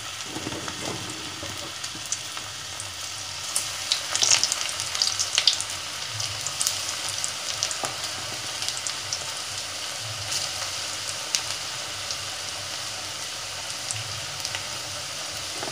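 Gram-flour pakora batter with chopped greens deep-frying in hot refined oil in a wok: a steady sizzle full of small crackles and pops, with a louder burst of crackling about four to five seconds in.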